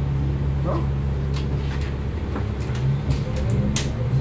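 Cabin noise inside a New Routemaster hybrid double-decker bus: a steady low hum from the running drivetrain. A few sharp clicks sound from the interior, the strongest near the end.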